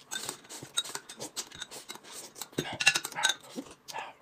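Two people eating: noodles slurped and chewed, with light clicks and clinks of chopsticks and a spoon against plates and glass cups.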